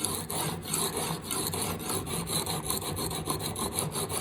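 Very coarse sharpening stone on a TSPROF guided knife sharpener being stroked back and forth along a steel knife edge, a gritty rasp repeated several times a second. The stone is grinding the bevel to raise a burr.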